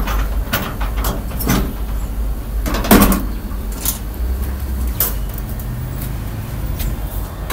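Front door's lock and handle clicking and knocking several times as the door is unlocked and opened, the loudest knock about three seconds in, over a steady low rumble.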